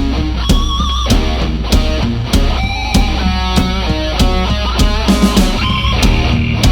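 Heavy metal band playing: an electric guitar riff over bass guitar and drums, with regular drum hits.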